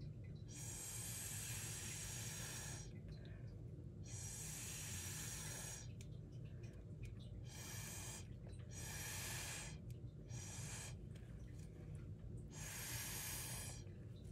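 Breath blown through a drinking straw in about six separate airy puffs, some two seconds long and some brief, pushing wet pour paint around on a rock.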